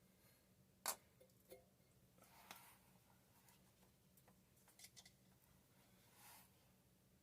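Quiet handling sounds of PVC pipe being primed for gluing: a sharp click about a second in, then a few soft swipes and small ticks.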